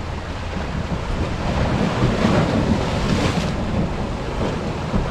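Ocean waves surging in against shoreline rocks, with a wave rushing and splashing in about two seconds in, over a steady rumble of wind on the microphone.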